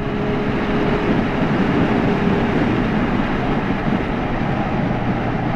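Benelli Leoncino 500 parallel-twin motorcycle underway at road speed: a steady rush of wind and road noise over the running engine.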